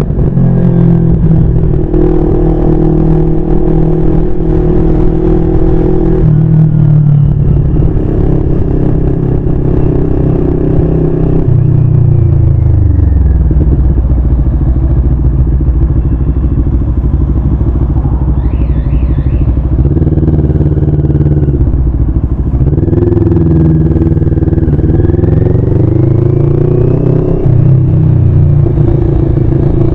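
CFMoto 400NK motorcycle's 400 cc parallel-twin engine running on the move. It holds steady at first, falls in pitch about twelve seconds in and stays low and slow for several seconds, then rises and falls again as the bike accelerates away.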